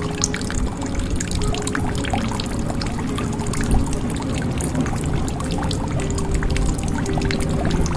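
Water pouring and trickling into a jug: a continuous splashing stream full of small droplet clicks, with short ringing tones from the filling vessel coming and going.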